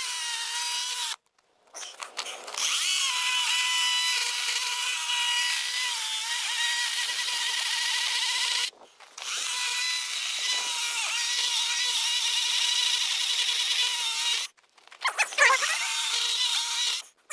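Electric chainsaw running and cutting into an ash log in several long runs, stopping briefly and starting again three times, its whine dipping slightly as it takes load. This saw lacked the power for the cut, according to the owner.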